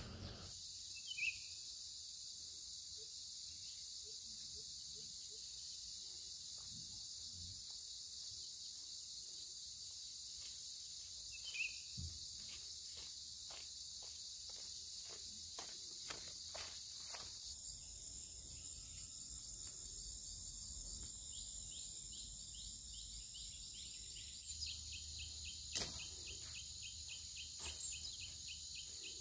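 Steady high-pitched chorus of forest insects buzzing and trilling, its mix of calls shifting twice and turning into a fast pulsing trill near the end. A run of soft footsteps on a path about halfway through.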